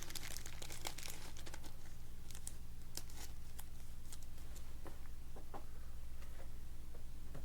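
Faint crinkling and scattered light clicks of trading cards and plastic card sleeves and holders being handled, over a low steady hum.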